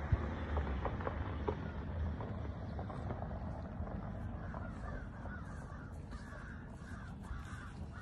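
Crows cawing repeatedly in the background, the calls coming thicker in the second half. A low rumble on the microphone fills the first couple of seconds.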